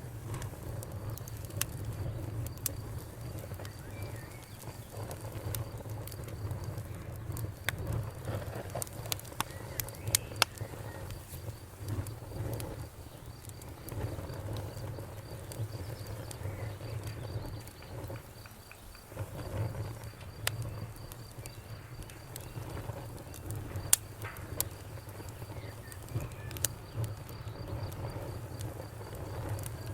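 Campfire burning: a low rumble of flames with scattered sharp crackles and pops, and a few louder snaps about a third of the way in and again about four-fifths through.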